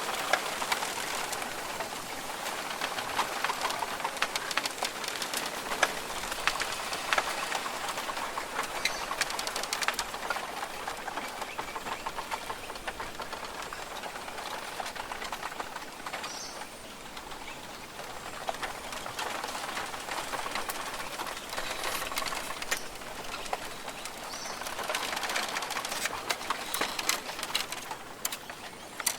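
Rainforest ambience: rain falling and dripping on foliage as a steady hiss of many small drops, easing a little mid-way and picking up again near the end, with birds calling now and then.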